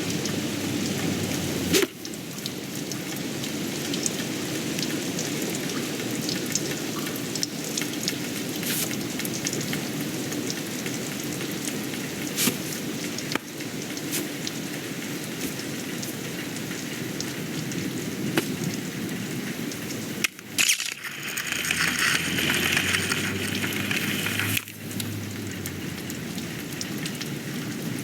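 Steady rain falling, with scattered small clicks and knocks. Just after 20 seconds it drops away briefly, then comes back brighter and hissier for about four seconds before settling back to the earlier steady patter.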